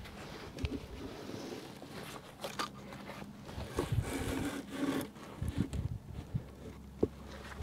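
Faint rubbing and scraping as straw and wooden beehive parts are handled, with a few light knocks.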